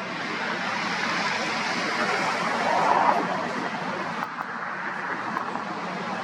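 Jet engines of a Boeing 747-400 passing, a broad rushing roar that builds to its loudest about three seconds in, then eases slightly.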